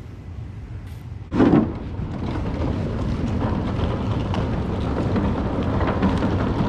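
A loud thump about a second and a half in, then the steady rolling rumble and fine clicking of wheeled suitcases being pulled across a wooden plank floor.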